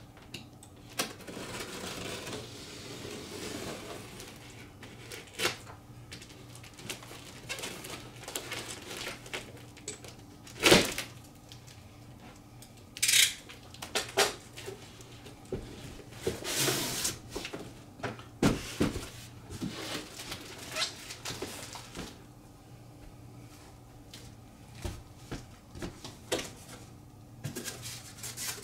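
Cardboard boxes and packaging being handled and unpacked: scattered rustling, scrapes and knocks, with one sharper knock about eleven seconds in.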